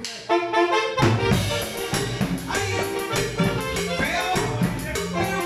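A small live band strikes up a Latin dance number on keyboard, drum kit and congas. A short pitched keyboard lead-in opens, then the full band with drums comes in about a second in and plays on at a steady beat.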